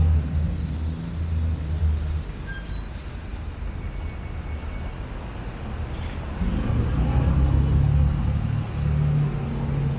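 City street traffic: the low rumble of van and truck engines idling and pulling through an intersection, louder at the start and again from about six and a half seconds in. A faint high whistle rises and falls near the end.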